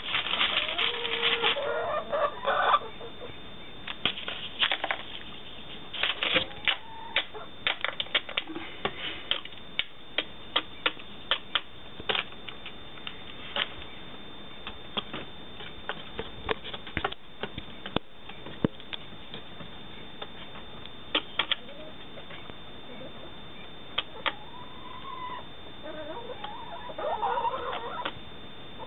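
A hen pecking at crumbs on a window sill: a run of sharp, irregular beak taps, at times several a second. Soft clucks come in the first few seconds and again near the end.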